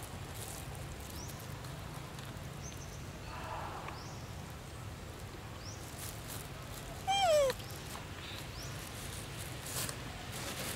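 Forest background with a steady low hum and faint, brief high chirps, and about seven seconds in one short, loud animal call that falls in pitch.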